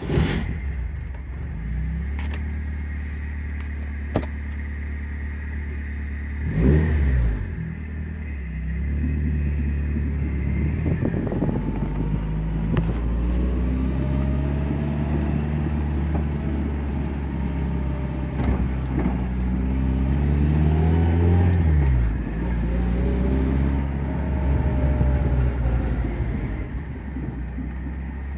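1981 Fiat 2000's twin-cam four-cylinder engine starting from cold and idling, with a short rev about seven seconds in. It then pulls away and accelerates through the gears, the engine note rising with each gear and dropping at each shift.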